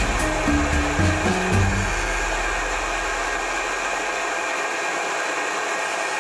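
Homemade miniature jet engine (small gas turbine) running steadily: a loud rushing hiss with a faint steady whine. Background music with low notes plays over it for the first two seconds.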